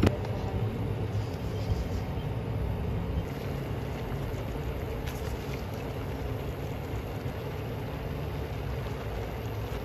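Meat broth simmering in a pan on a cooktop, a steady low rumbling noise, with faint rustles and taps as handfuls of water spinach are dropped in.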